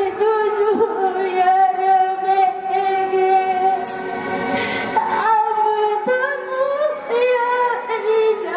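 A Santali folk song sung live by a woman over musical accompaniment, her voice holding long, wavering notes.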